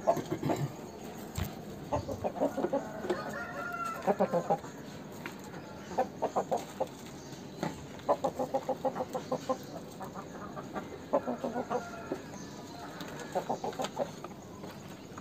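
Aseel rooster clucking in short, rapid runs of notes, a run every second or two.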